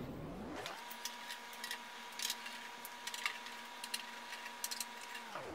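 Scattered faint metallic clicks and ticks of a Torx T20 driver backing screws out of a cooktop's sheet-metal cover. The sound is thin, with the low end cut away, and a faint steady tone runs under it.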